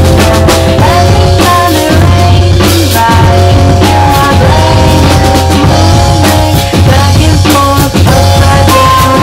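A drum kit played live along with a recorded rock song: a steady beat of kick, snare and cymbal hits over guitar, bass and a singing voice.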